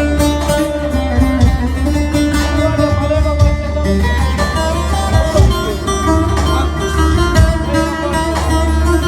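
Instrumental Turkish folk music led by a plucked saz (bağlama) playing a busy melodic run over a steady low accompaniment.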